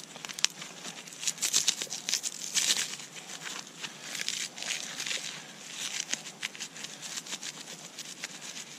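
Dry red cedar bark being shredded and rubbed apart into a fine tinder bundle by gloved hands: a dense, irregular rustling and crackling of tearing bark fibres, busiest in the first three seconds.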